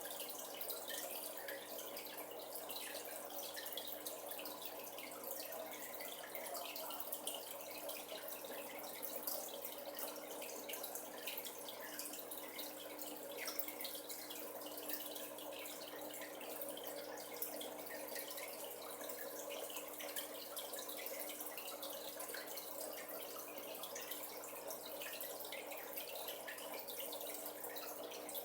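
Aquarium water circulating with steady trickling and dripping, over a low steady hum.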